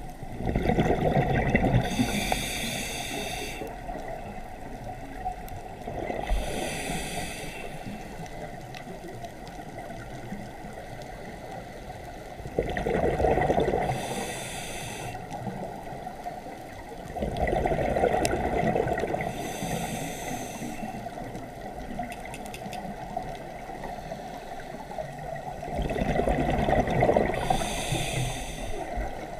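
Scuba diver breathing through a regulator, heard underwater: five breaths about every five to six seconds, each a rumbling gush of exhaled bubbles paired with a short hiss of inhalation through the regulator.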